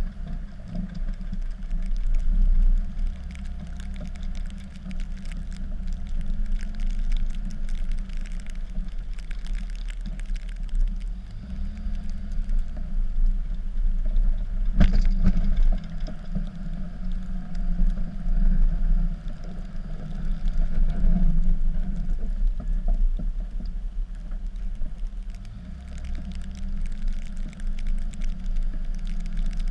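Cummins diesel engine of a Dodge pickup running while plowing snow, its level rising and falling, with a sharp knock about halfway through.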